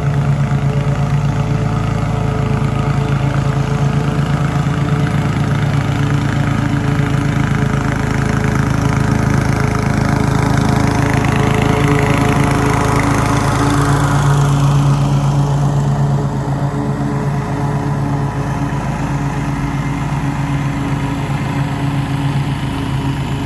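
Small gasoline engine of a tracked, remote-controlled robotic lawn mower running steadily as it mows. It gets louder about halfway through as the mower passes close by, then quieter as it moves away.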